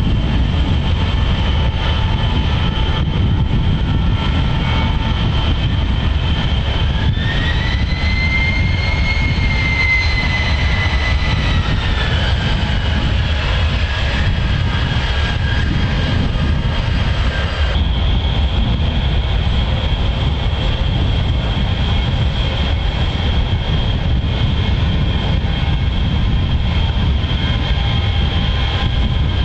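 Jet aircraft engines running with a steady deep rumble and a constant high whine. A second whine rises and then falls away between about seven and twelve seconds in.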